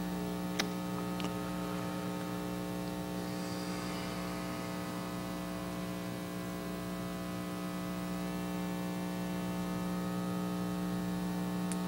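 Steady electrical mains hum with a buzzy edge, unchanging throughout, with a few faint clicks about half a second and a second in and again near the end.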